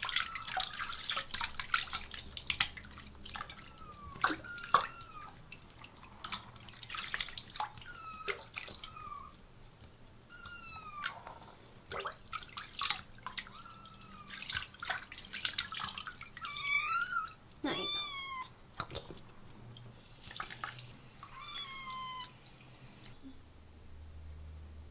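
Young kitten mewing again and again while being bathed, short high cries that rise and fall, with water splashing and dripping in the sink around it. The cries stop about two seconds before the end, leaving a low steady hum.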